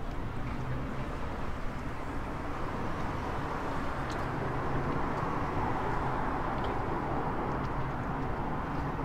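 City traffic rumbling steadily, swelling a little in the middle and then easing.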